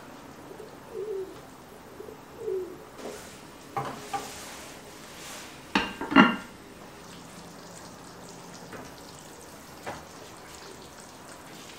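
A spatula scraping and stirring chicken curry in a pan, with knocks and clatters of a glass pot lid and utensils, the loudest clank about six seconds in.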